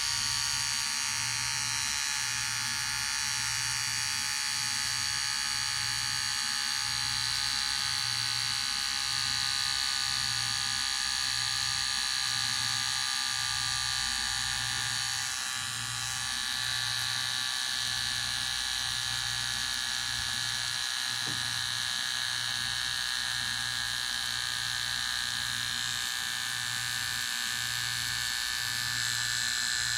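Electric hair clipper running continuously with a steady high buzz; the level dips briefly about halfway through, then the buzz carries on.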